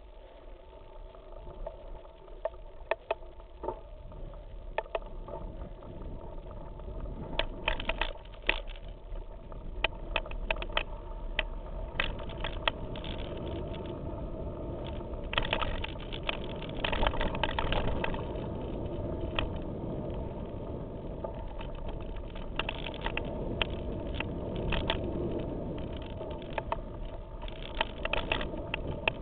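Mountain bike rolling fast over a stony gravel trail, picked up by a handlebar-mounted camera: a steady rumble of tyres and frame, louder after the first several seconds, broken by frequent sharp clatters and knocks in clusters as the bike rattles over rocks.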